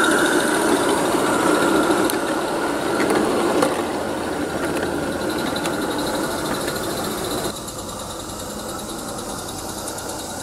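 Roundhouse Dylan, a small live steam garden-railway locomotive, running along the track hauling coaches past close by with a rapid, even exhaust beat, growing fainter as the train moves away. The sound drops suddenly to a quieter, more distant run about seven and a half seconds in.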